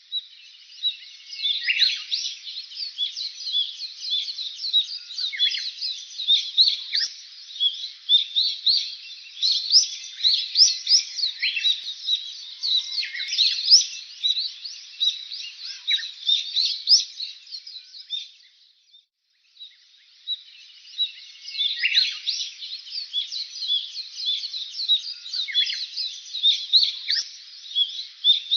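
Many small birds chirping at once, a dense chatter of short, high chirps. It drops out briefly about two-thirds of the way through, then starts again.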